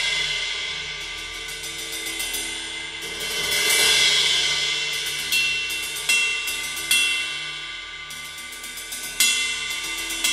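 Centent Emperor 20-inch ride cymbal, hand-made of B20 bronze, played with a drumstick: a run of quick strokes over a ringing wash that swells about three seconds in.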